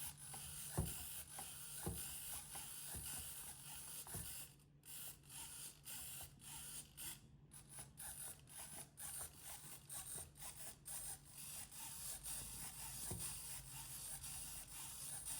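Faint handling of small parts: a few light clicks and taps over a steady low hum and hiss.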